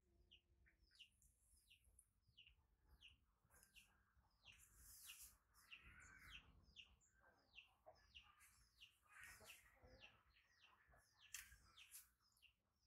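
Faint series of short, high-pitched chirps, each falling in pitch, repeating about twice a second.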